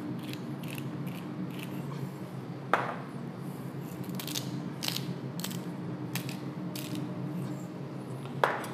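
Hand-held salt and pepper mill twisted over a plate: a string of short, dry grinding ticks in bursts, with a knock about three seconds in and another near the end. A low steady kitchen hum runs beneath.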